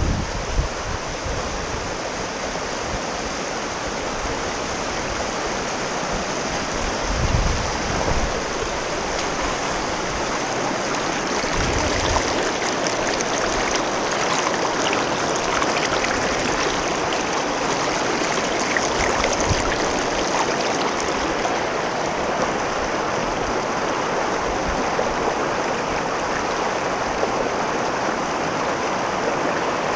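Shallow river rapids rushing and splashing over rocks, heard close to the water surface as a steady roar.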